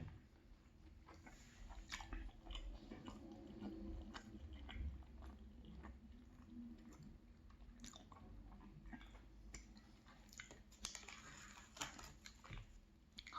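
A person chewing a soft muffin with close-miked mouth sounds: quiet, with many small clicks scattered through it.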